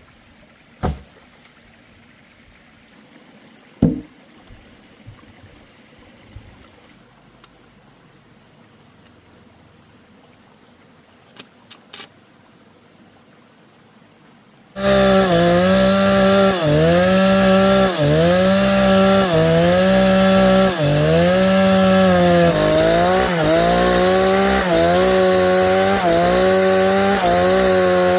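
A quiet stretch with a couple of sharp wooden knocks, then about halfway through a chainsaw comes in suddenly and loud, cutting through a large log. Its engine pitch sags and recovers over and over as the chain bites into the wood.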